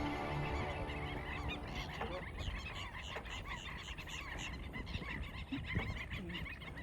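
Dense chorus of many short, overlapping animal calls repeating rapidly, over a low outdoor rumble.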